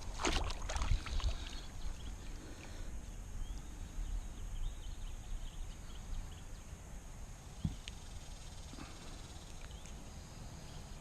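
Outdoor river ambience: a low steady rumble with faint high chirps scattered through it and a few light knocks, the loudest near the start.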